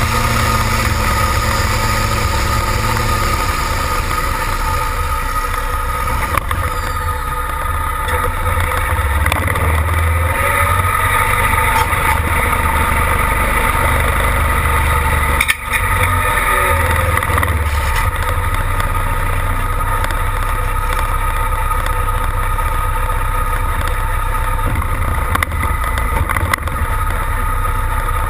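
Heavy engine running close by, winding down from high revs in the first few seconds and then running steadily at idle, with a brief drop in the sound about halfway through.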